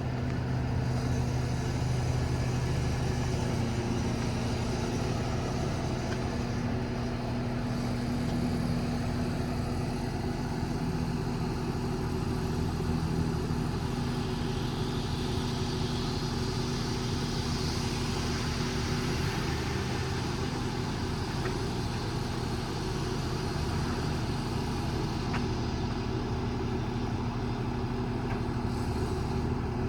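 Cummins diesel engine of an International 4400 crane truck running steadily with an even hum, powering the crane's hydraulics while the crane is worked.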